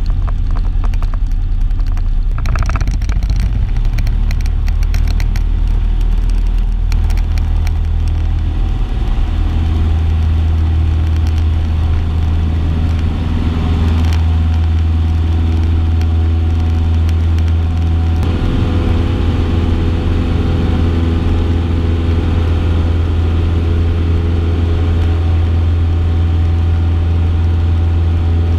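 Cessna 162 Skycatcher's four-cylinder Continental engine and propeller, heard from inside the cabin, running up to takeoff power: the drone rises in pitch about nine seconds in, then holds steady through the takeoff roll and climb-out.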